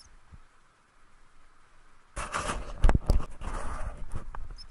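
Footsteps and rustling through dry grass with camera-handling noise, starting about two seconds in, with a couple of sharp knocks about three seconds in.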